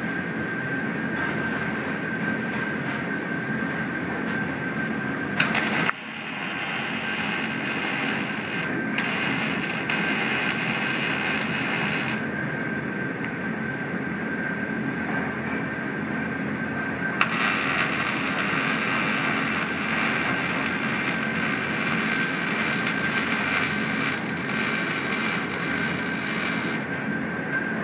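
MIG welder's arc burning on steel plate: a steady hiss in two long runs with a pause in the middle, over a constant drone.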